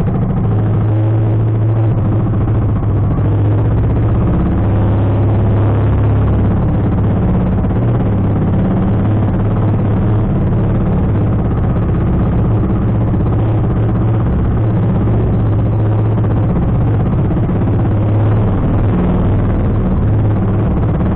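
Motorized outrigger boat's engine running steadily under way, a constant low drone, with water noise from the hull and outriggers cutting through the waves.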